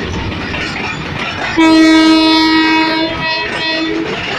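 Freight wagons running past at speed with steady rolling noise. About one and a half seconds in, a diesel locomotive's multi-note air horn sounds loudly for about two seconds, with part of the chord carrying on for about another second.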